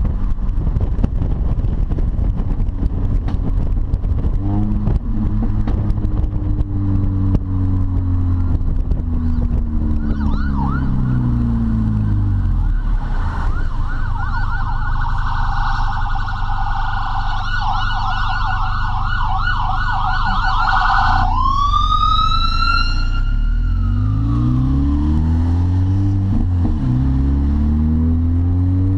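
Supercharged four-cylinder engine of an R53 Mini Cooper S with a straight-piped exhaust, heard from inside the cabin: revs fall as the car slows, then climb through the gears near the end. In the middle an emergency-vehicle siren sounds for about ten seconds, a fast warble that ends in one rising and slowly falling wail.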